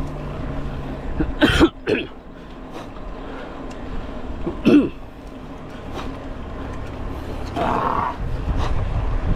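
Steady hum of a car driving on the road, with short throat sounds from a person about a second and a half in, again just before five seconds, and more softly near eight seconds.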